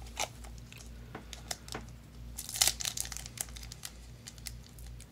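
Foil Yu-Gi-Oh! booster pack crinkling as it is handled and torn open, with scattered crackles and a louder burst of crinkling about two and a half seconds in.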